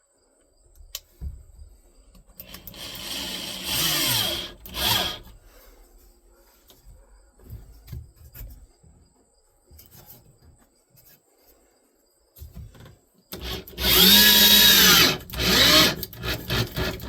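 Corded 6-amp Black & Decker drill running in two bursts, a shorter one a few seconds in and a longer, louder one near the end, its motor pitch rising as it spins up and dropping as it slows. Light knocks of wood and tool handling come between the bursts.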